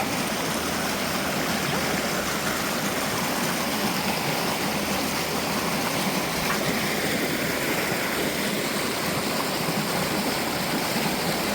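A shallow forest stream running over rocks, a steady rushing and babbling of water.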